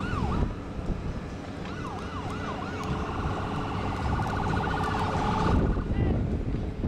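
An emergency vehicle siren sweeping up and down several times, switching to a rapid warble about three seconds in and stopping about two and a half seconds later. Beneath it, the low rumble of the Embraer 170's jet engines at takeoff thrust.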